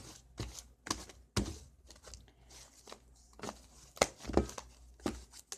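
Hands kneading and stretching fluffy slime made from glue, contact solution and shaving cream, giving irregular sticky pops and crackles about every half second. The batch is still being worked by hand to come together.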